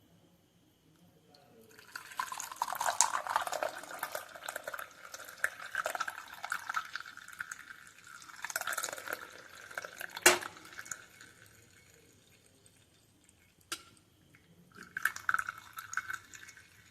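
Hot herbal decoction poured from a pan through a strainer into a glass, splashing and trickling for about seven seconds. A single sharp knock comes about ten seconds in, and a short second pour near the end.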